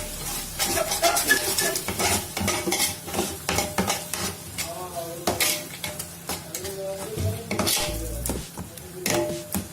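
A metal spoon scraping and clinking against a cooking pot as chicken masala with freshly added yogurt is stirred, irregular knocks and scrapes over a sizzle from the pot.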